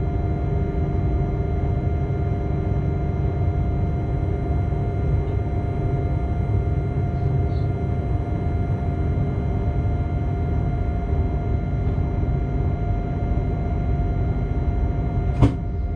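Steady low running rumble of a locomotive heard from inside its cab, with several constant humming tones over it. A single sharp click comes near the end.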